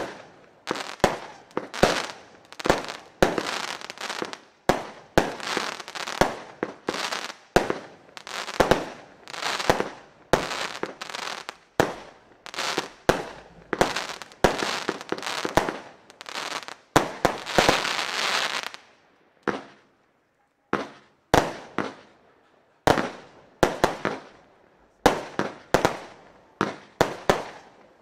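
J-Fireworks Temptation consumer firework battery firing shot after shot, about one to two sharp reports a second, each followed by a short noisy tail. A little past halfway there is a longer unbroken stretch of noise, then a pause of a second or so before the quick shots resume.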